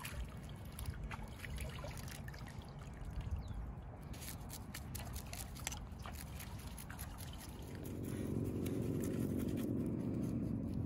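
River water splashing and trickling as freshly caught fish are rinsed and cleaned in the shallows, with small knife scrapes and clicks. About eight seconds in, a steady low hum comes in and grows louder.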